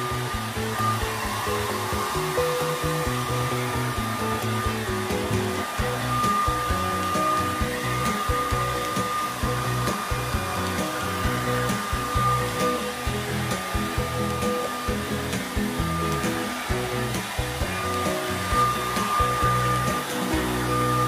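Hand-held hair dryer blowing steadily, drying a dog's wet coat. Its high whine swells and fades as it is moved about, with background music playing under it.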